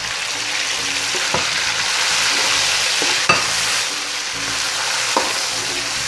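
Chopped tomatoes sizzling in hot oil with ginger-garlic paste in a kadai, a steady frying hiss. A spoon stirring them knocks or scrapes against the pan a few times, loudest just past three seconds in.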